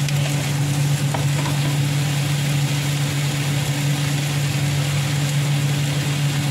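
Gourd slices sizzling in oil in a nonstick frying pan, with a spatula moving them now and then. Under the sizzle runs a steady low hum from the electric cooktop.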